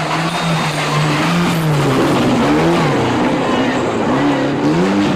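Rally car engine running hard. Its note holds steady, dips about two seconds in, then climbs in several short rising sweeps as it accelerates through the gears.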